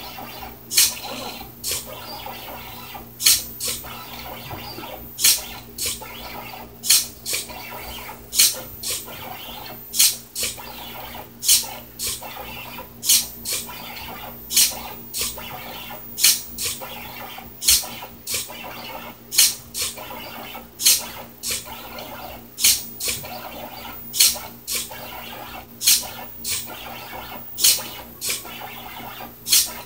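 4xiDraw pen plotter drawing: its stepper motors drive the carriage while the pen scratches on the paper. Sharp clicks, often two close together, come every one to two seconds as the micro-servo pen lift raises and drops the pen.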